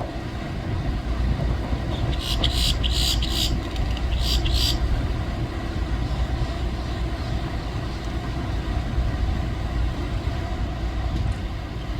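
A bird calling in a quick series of short, high chirps a couple of seconds in, over a steady low rumble.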